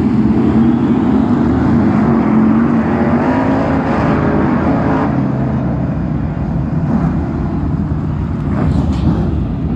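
F1 stock cars' big V8 engines running loud and continuously as the pack races around the oval.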